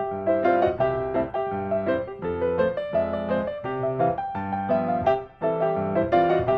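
Background piano music: a light melody of quick, evenly played notes.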